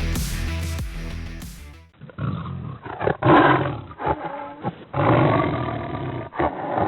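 Electronic music fading out about two seconds in, followed by a big-cat roar sound effect, rough and loud, rising and falling in several surges.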